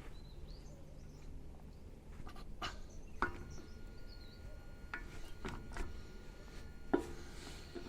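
Faint, scattered metallic clicks and knocks as the front wheel bearing adjusting nut is backed off with a hand tool on a Toyota Landcruiser 80 series front hub.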